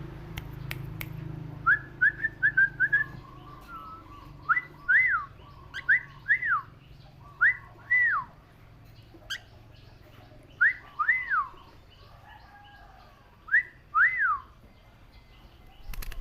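Clear whistled notes: a quick run of short rising whistles, then clean rise-and-fall whistles, mostly in pairs, repeating every couple of seconds, with a few sharp clicks between.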